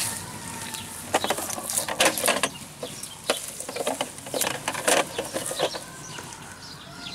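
Irregular clicks, knocks and rustles of plastic toy vehicles being handled.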